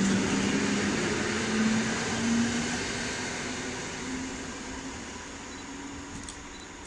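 Electric multiple unit passing and running away, with a steady hum and rolling noise that fade gradually as it recedes.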